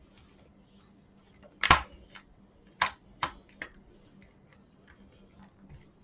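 Clicks and knocks of a screwdriver and screws against a blower's plastic housing during disassembly: one louder knock just under two seconds in, then three lighter clicks in quick succession and a few faint ticks.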